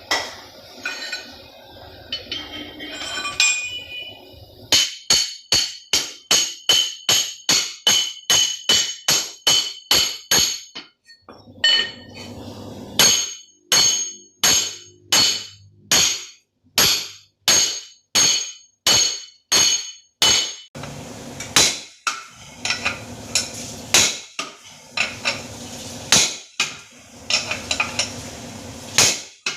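Hammer striking metal in a long run of sharp, ringing blows, about two a second, with a brief pause partway through.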